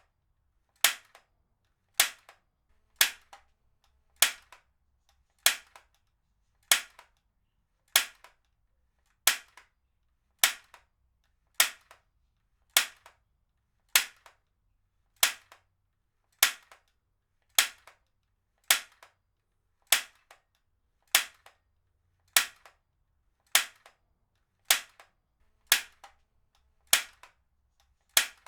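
Heavy-duty stapler firing staples again and again, a sharp snap about every 1.2 seconds, each followed by a faint small click.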